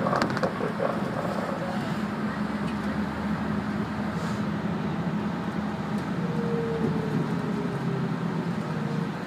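City route bus under way, heard from inside the cabin: a steady engine drone with road noise, and a faint, slightly falling whine in the last few seconds.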